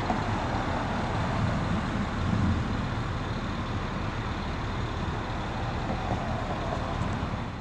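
Diesel engines of fire trucks running steadily at idle, a low, even engine sound with some outdoor traffic noise over it.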